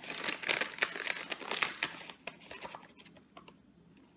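Protein-powder sample packet crinkling and rustling as it is handled: dense rustling for about two seconds, then a few lighter rustles and clicks that die away.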